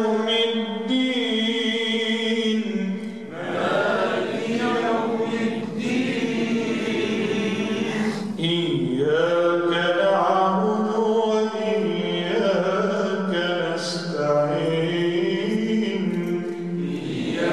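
A man's solo Quran recitation in a melodic chanting style, with long held notes and ornamented pitch turns, in phrases broken by short breaths about three and eight seconds in.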